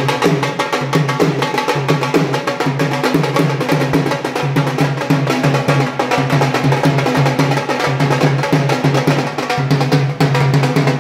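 Dhol and nagada drums beating a steady, dense rhythm of quick strokes.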